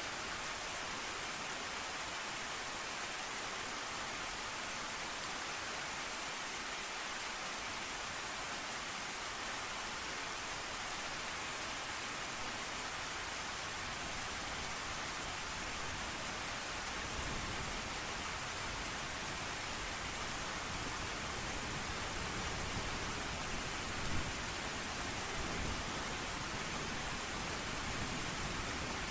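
Steady heavy rain hissing, with a low rumble of thunder coming in a little past halfway and swelling briefly near the end.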